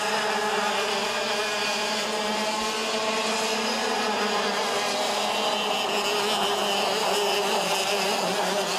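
Several two-stroke racing kart engines running hard at once, a continuous engine whine with several notes whose pitches drift slightly as the karts pass.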